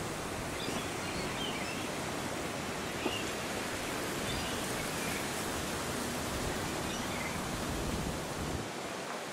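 Steady wind noise with a few faint bird chirps; the low rumble of the wind drops away near the end.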